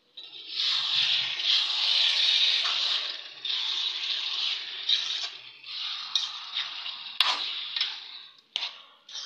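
A spatula scraping and stirring duck pieces around a metal wok. The scraping is steady for about three seconds, then comes in separate short strokes toward the end.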